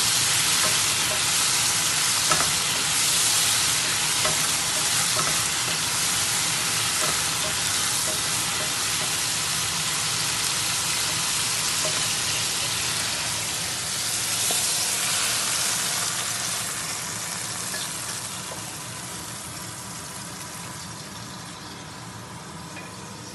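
Pan-fried tofu cubes and spring onions sizzling in soy sauce in a frying pan while a wooden spatula stirs them, with light scattered taps; the sizzle dies down over the last several seconds.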